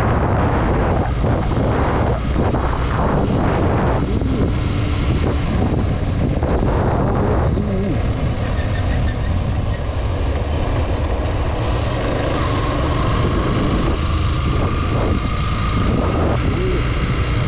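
Motorcycle riding at road speed: the engine runs steadily under heavy, gusting wind buffeting on the helmet or handlebar microphone.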